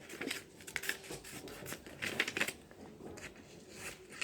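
Scissors snipping through paper, cutting out a drawn circle: a run of irregular short snips with paper rustling.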